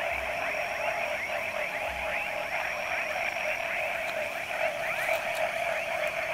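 Night chorus of many frogs at a pond: countless short, falling calls overlap into a continuous din, with a faint steady high-pitched whine above it.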